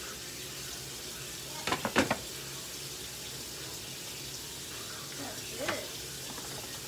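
A lid set down on a skillet of cooking rice, a short clatter of a few knocks about two seconds in, over a steady sizzling hiss from the pan. A lighter knock follows near the end as a hand works at the lid of the pot beside it.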